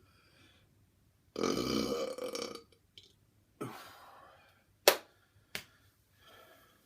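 A man's loud burp lasting over a second, followed by a shorter, quieter sound that fades out. Then come two sharp clicks about two-thirds of a second apart.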